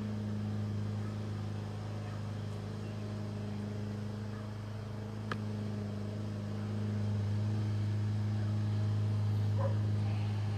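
A steady low hum on one pitch with its overtone, growing a little louder about seven seconds in. A single sharp click sounds about five seconds in.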